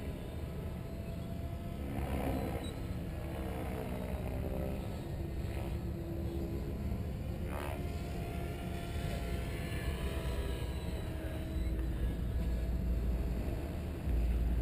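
Synergy E7se electric RC helicopter flying overhead: its rotor blades and motor whine, the pitch sliding up and down as it moves and manoeuvres. A heavier low rumble comes in over the last few seconds.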